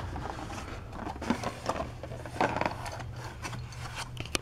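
Clear plastic blister packaging crinkling and clicking as an action figure is pulled out of it by hand: scattered short crackles, with a sharp click near the end.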